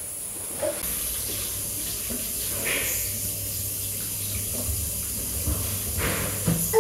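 Water running steadily from a tap into a washbasin, starting about a second in, with a few small knocks and handling sounds at the sink.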